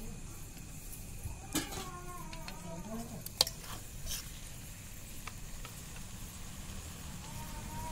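A metal spatula stirring and scraping a thick masala in an aluminium kadai, with a light sizzle of frying and several sharp metal clicks against the pan, the loudest about three and a half seconds in. A faint wavering call is heard in the background about two seconds in.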